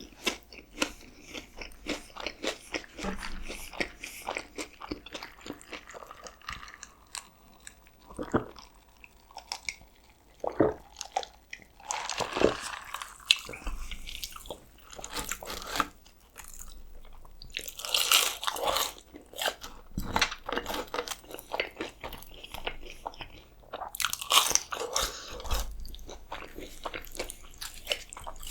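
Close-miked eating of fast food: chewing and biting with crunching, going on in repeated bouts with several louder bursts every few seconds.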